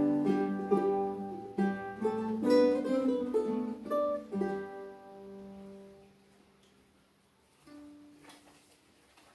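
An ensemble of ukuleles and guitars plucking and strumming a carol, closing on a held chord that rings and fades out about five seconds in. After it, a single soft stray note and small handling clicks.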